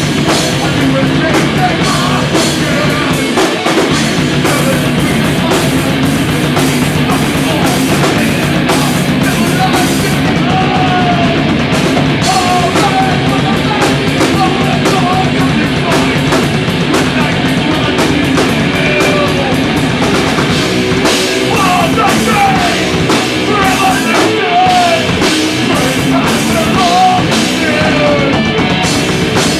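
Live thrash-punk band playing loud and fast: pounding drum kit, distorted electric guitars and bass, with a singer shouting into the microphone.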